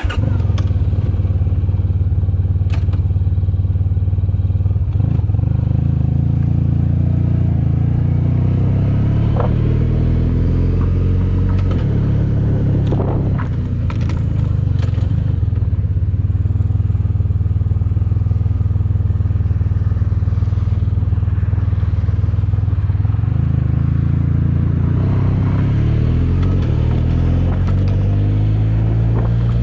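Motorcycle engine running under way, its pitch climbing as it accelerates through the gears about five seconds in and again near the end, with a few knocks and rattles over it.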